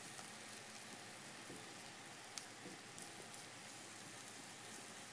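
Hoba miso (miso on a dried magnolia leaf) sizzling and bubbling softly over charcoal: a faint, steady hiss with a few tiny pops.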